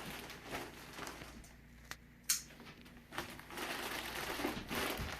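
Packaging being handled and opened by hand: rustling and crinkling with scattered light clicks. There are two sharp clicks about two seconds in, and the handling gets busier from about three seconds on.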